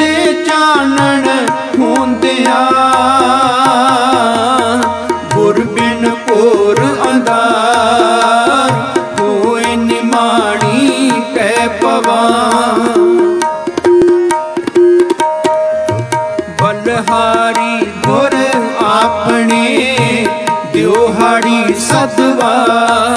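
Gurbani kirtan music between sung lines: tabla playing under a wavering melody, with a steady held drone note.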